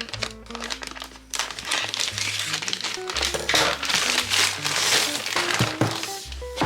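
Crinkling and rustling of a shipping package being torn open and handled, over background music with held bass notes. The crinkling is densest from about two seconds in until just before the end.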